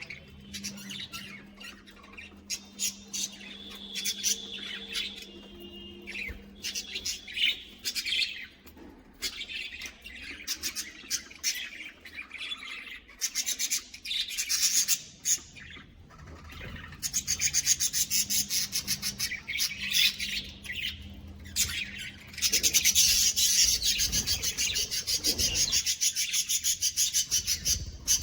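A colony of budgerigars chirping and chattering, many birds at once. In the second half a fast, even, rapid chatter grows louder.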